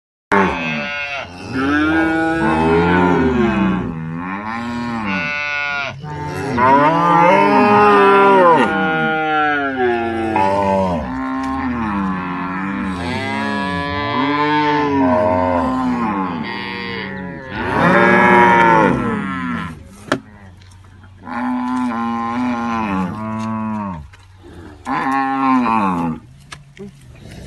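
Cattle mooing over and over: long calls that rise and fall in pitch, several at times overlapping, with short lulls between some of them.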